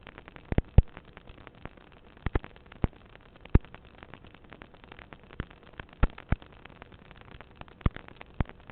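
Strange popping sounds of unknown source: irregular sharp pops, about a dozen loud ones at uneven intervals, among many fainter clicks and crackles over a low hiss.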